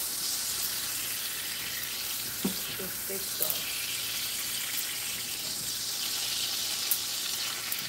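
Sirloin steaks sizzling steadily in a hot frying pan with jerk sauce, the sizzle swelling a little midway. A few light clicks of a utensil against the pan.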